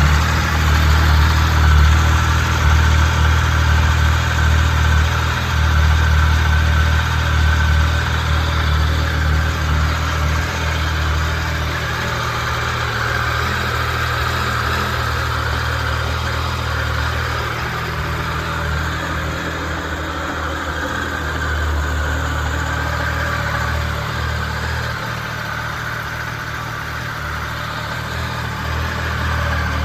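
Triumph Tiger 1050's three-cylinder engine idling steadily through its stock exhaust, slightly louder for the first ten seconds or so.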